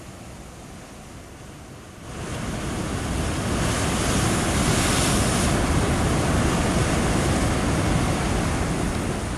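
Waves breaking over rocks: a rushing water noise that swells up about two seconds in and then stays loud and steady.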